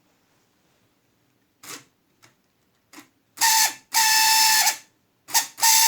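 Small electric motor and gears of a battery-operated tin toy VW Beetle running in several short stop-start bursts, a whirring with a steady whine, after a few light clicks. The owner says the mechanism is still dry in places.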